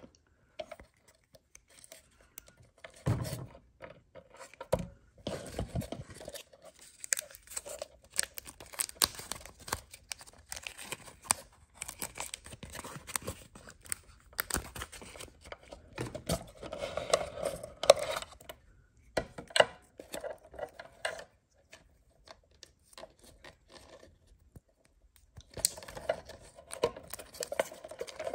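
Close-up handling noise: irregular clicks, knocks and scrapes of objects being moved and handled, with a longer pause near the end.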